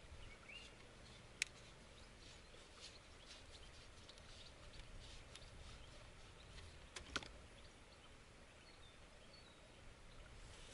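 Faint birdsong chirping over quiet outdoor stillness, with two sharp clicks, one about a second and a half in and a double one about seven seconds in, as a fishing rod and reel are handled.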